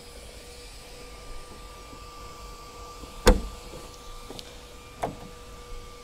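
Fibreglass deck locker hatch being closed: one loud thump about halfway through, then a lighter knock from the lid and its flush stainless latch near the end.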